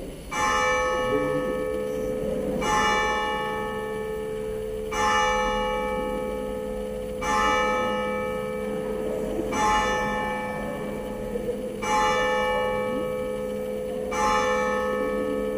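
Church bell tolling: seven even strikes a little over two seconds apart, each ringing out and fading over a steady low hum of the bell.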